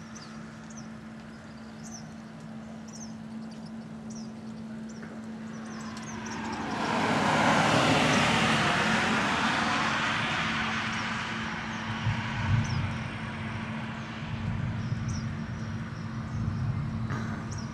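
A vehicle passing on the road: its tyre noise swells about six seconds in and fades slowly over the following seconds. Underneath runs a steady low hum, and birds chirp now and then.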